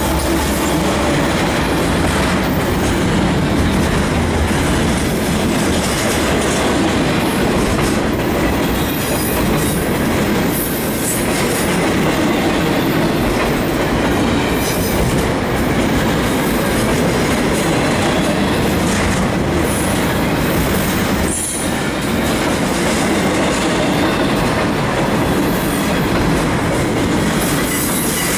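Double-stack intermodal train of loaded well cars rolling steadily past close by, a loud continuous rush of steel wheels on rail. A deep rumble from the trailing GE diesel locomotive fades out within the first second or two.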